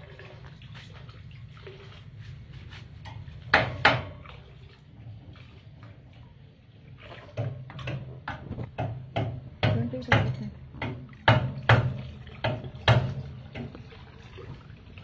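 Water splashing in a small inflatable paddling pool as a toddler slaps and moves in it: a pair of sharp splashes about four seconds in, then a quick run of them in the second half, over a steady low hum.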